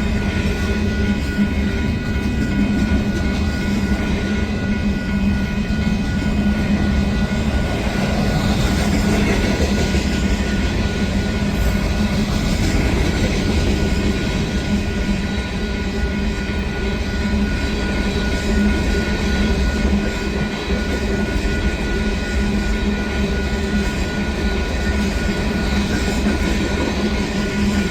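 Freight train rolling past, a steady rumble of railcar wheels on the rails.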